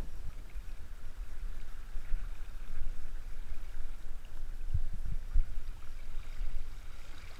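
Wind rumbling on the microphone over water splashing as a hooked striped bass thrashes at the surface. A few low thumps come about five seconds in.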